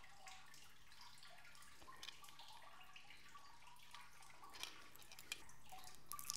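Near silence: quiet room tone with a few faint, scattered small clicks from a wet dive watch being handled, and a quick run of clicks near the end.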